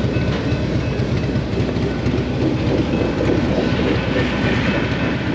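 Harley-Davidson V-twin motorcycle engines idling with a steady low rumble.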